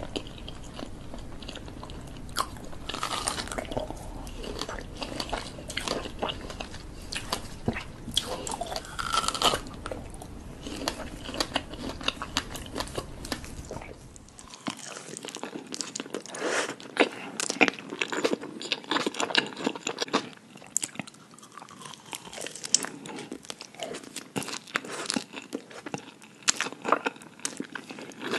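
Close-miked eating: irregular biting, chewing and wet mouth clicks. About halfway through the sound changes abruptly to a different recording with no low background rumble, and the chewing continues with sharper, spikier clicks.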